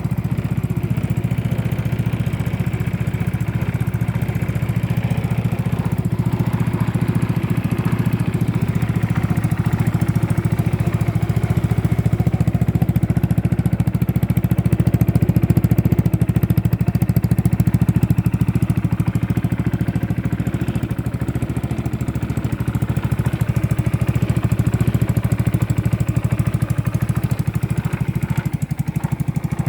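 Yamaha Majesty 125 scooter's single-cylinder engine running steadily through a Yoshimura aftermarket muffler, the exhaust getting slightly louder around the middle.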